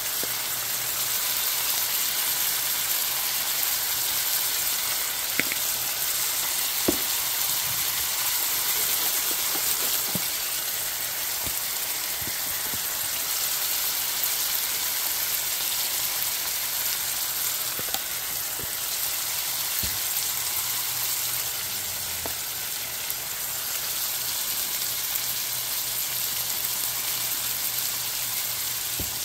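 Sliced onions, sweet peppers and tomatoes sizzling steadily in a frying pan, with a few light clicks scattered through it.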